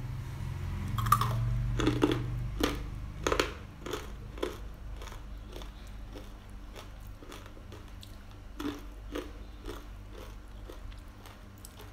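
Crispy flour-coated fried peanuts (kacang telur) being chewed: a run of sharp crunches about twice a second, loudest in the first few seconds and fainter toward the end. The crunching is the test of how crisp the freshly fried nuts are.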